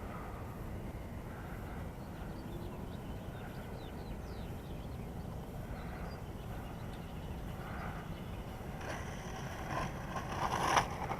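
Steady low wind rumble on an outdoor microphone, with no aircraft motor whine audible. A few louder rustling knocks come near the end.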